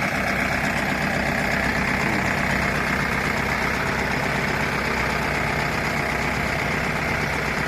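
Mini backhoe's engine running steadily.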